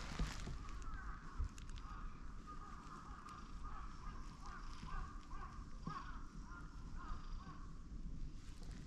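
Birds calling outdoors: a long run of short calls in quick succession, over a low rumble of wind on the microphone.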